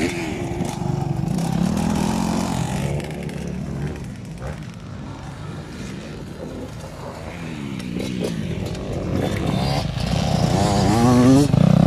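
Motocross dirt bikes riding on a dirt track: an engine revving as it pulls away and fading, then a Yamaha dirt bike approaching and passing close near the end, its engine revving up and growing loud.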